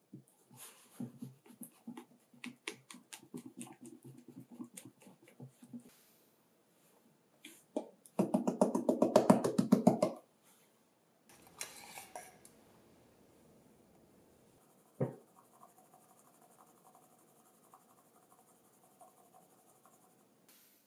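A silicone spatula scrapes and clicks against a glass bowl as it stirs a wet banana batter. Then comes a loud, rapid rattle lasting about two seconds, followed by flour hissing into a metal mesh sieve, a single thump, and the soft steady patter of flour being sifted.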